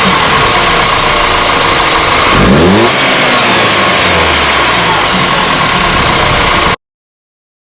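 Audi A4 B8.5's turbocharged four-cylinder engine with an APR Carbonio intake running loudly under a hiss, with a quick rise in pitch about two and a half seconds in; the sound cuts off abruptly near the end.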